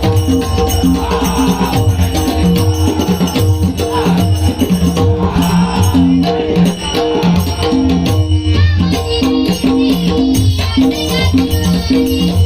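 Music of a Marathi Vitthal abhang (devotional song) with no clear words: a rattling hand percussion and a low drum beat run steadily under sustained held notes. About two-thirds of the way through, a higher, wavering melody comes in.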